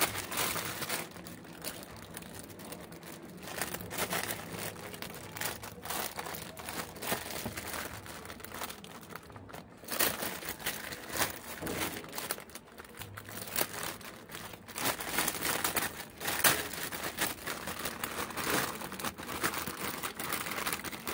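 Clear plastic bag crinkling and crackling as hands handle and unwrap a graphics card, an irregular, continuous run of rustles.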